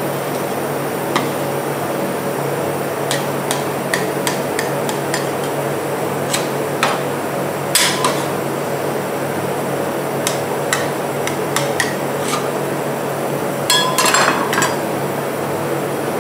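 Metal spatulas scraping and clicking on the frozen steel plate of a rolled-ice-cream pan as ice cream is rolled up, with scattered sharp taps and short clusters of clinks about halfway and near the end. A steady hum runs underneath.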